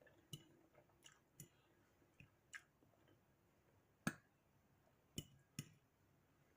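Quiet eating: scattered faint clicks and small taps, about eight in all, with a sharper one about four seconds in.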